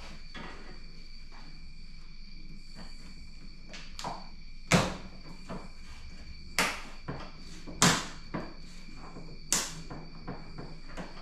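A handful of sharp plastic-and-metal knocks and clicks, the loudest about five seconds in and again near eight seconds, from hands working the wiper arms and cowl panel loose at the base of a Mustang's windshield. A faint steady high-pitched whine runs underneath.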